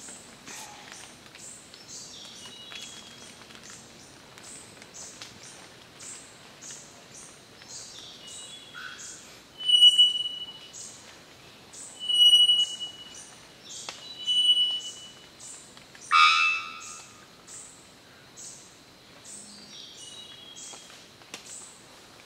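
Male three-wattled bellbird calling: four loud notes about two seconds apart, three of them thin, steady, high whistles and the last a harsher, broken note. A faint high pulsing chirr, about two beats a second, runs underneath.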